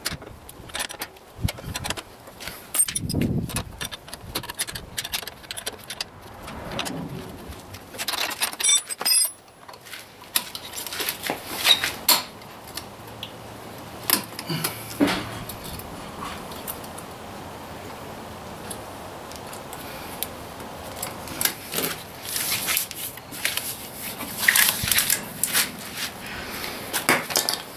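A bunch of hex keys jangling, with irregular metallic clicks and clinks against a new Lexx motorcycle muffler and its mounting brackets as it is bolted into place. The clinks come thickest near the end.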